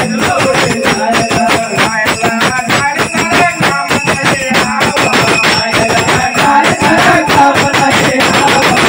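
Nimadi folk devotional music: fast, steady strokes on a mirdhing (two-headed hand drum) with jingling cymbals, under a wavering melody line.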